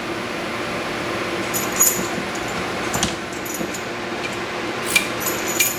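Light metallic clicks and taps of a dimple key being handled and worked into a CISA Astral S euro cylinder lock, over a steady background hum.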